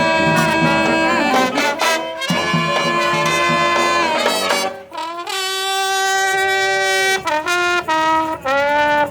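Brass band playing a tune: horn lines over a pulsing bass for the first few seconds. About five seconds in the band holds a long chord, then moves into short separate notes.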